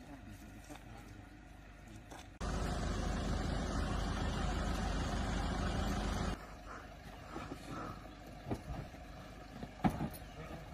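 Roadside ambience. A couple of seconds in, a loud steady rumbling rush starts abruptly and cuts off just as suddenly about four seconds later. After it come scattered knocks and a sharp thud near the end as hard-shell cases are handled at the open side door of a van.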